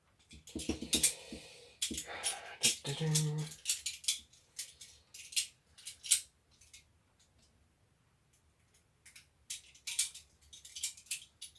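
Plastic drill housing parts and small components being handled and fitted together: irregular clicks, knocks and light rattles, with a brief creak about three seconds in.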